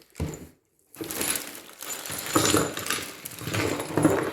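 Small metal hardware, nuts and bolts, rattling and clinking as it is handled, with a short knock just after the start.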